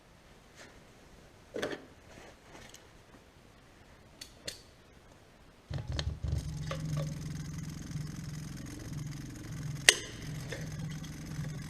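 A few light clicks of tools being handled, then about six seconds in a steady low mechanical hum starts abruptly and carries on, with one sharp click near the end.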